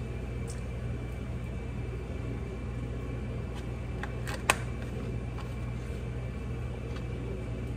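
Steady low hum of a kitchen appliance running, with a few faint clicks and one sharp plastic click about four and a half seconds in as the screw cap goes back onto a plastic jug.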